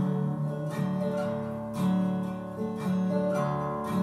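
Acoustic guitar strumming slow chords that ring on, with a new strum roughly every second and no singing.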